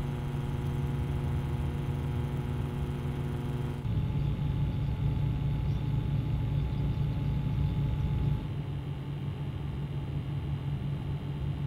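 120 mm PC cooling fans running, recorded with a microphone right at the hub. First comes a Corsair 120 mm fan at 1700 RPM, a steady hum with a stack of whining tones. About four seconds in it gives way to the Noctua NF-S12B FLX at 1200 RPM, a steadier whir of air with fewer tones, which steps down a little in level about eight seconds in as the fan is slowed to 900 RPM.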